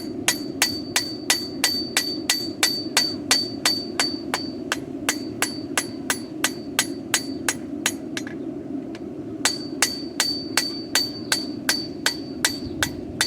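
Blacksmith's hammer striking the steel of a horseshoe on an anvil, dressing down the flat point of a hoof pick. The blows come evenly at about three a second, each with a bright metallic ring. They stop for about a second and a half just past the middle, then resume.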